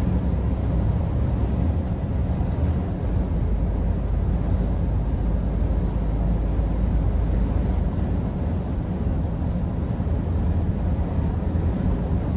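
Steady drone of a lorry's diesel engine with road and tyre noise, heard from inside the cab while cruising. The engine hum is low and steady throughout.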